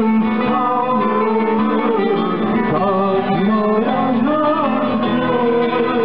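A choir singing a song, accompanied by plucked bağlamas (long-necked lutes).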